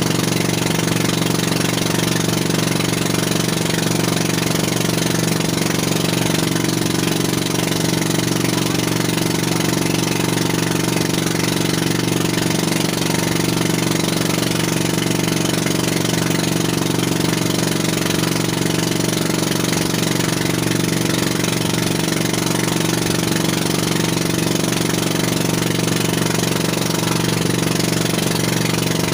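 Outrigger fishing boat's engine running steadily while the boat is underway, at an even, unchanging speed.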